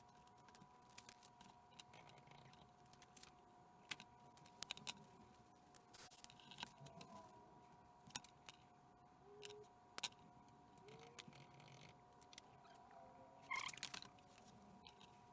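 Near silence: faint scattered clicks over a faint steady two-note whine.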